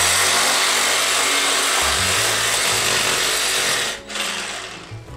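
Reciprocating saw cutting through a sheep carcass, meat and bone, with a loud, steady buzz. It runs for about four seconds, stops briefly, and starts again near the end.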